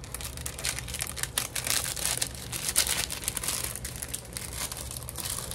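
Paper and craft pieces crinkling and rustling as they are handled, a run of quick, irregular rustles that is busiest around the middle.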